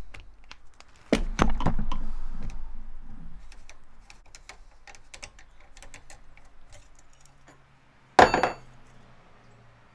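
Metal tools and fork parts being handled at a bench vise: a loud knock about a second in trailing off into a couple of seconds of clicking and rattling, light ticking as the center bolt is worked loose by hand, and a sharp ringing metallic clank near the end.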